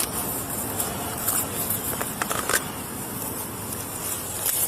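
Scattered short clicks and rustles, about half a dozen, over a steady background hiss, typical of handling and clothing noise on a body-worn camera's microphone.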